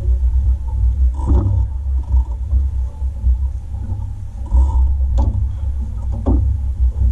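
Steady low rumble aboard a small fishing boat, with a few short sounds over it.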